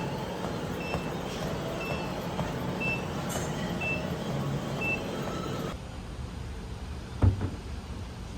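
A vehicle's reversing alarm beeping once a second, five times, over steady traffic noise. Then a quieter background with a single thump near the end.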